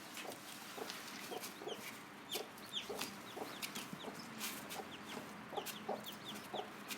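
Mother hen clucking over and over in short low notes, her food call that shows her day-old chicks where to eat, while the chicks peep in short, high notes falling in pitch.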